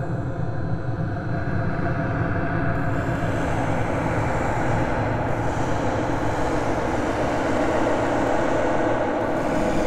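Low, steady rumbling drone of horror-film sound design, thickening and swelling in the middle range about three seconds in.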